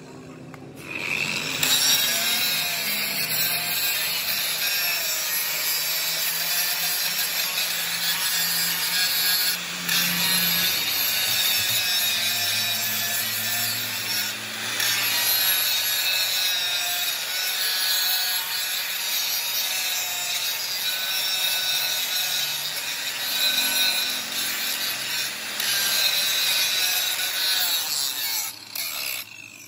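Large handheld angle grinder with an abrasive disc cutting into thick steel: a continuous grinding noise over the motor's whine. It starts about a second in and stops just before the end, with brief dips along the way.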